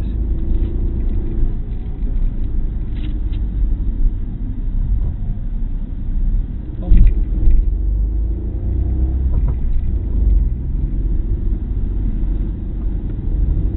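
Opel Corsa's engine and road noise heard inside the cabin, a steady low rumble, with a single thump about seven seconds in.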